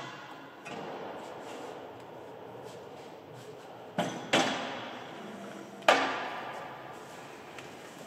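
An aluminium frame bar on a combine grain header being handled and moved: metal clanks and knocks, three sharp ones about four seconds in, just after, and about six seconds in, each ringing out.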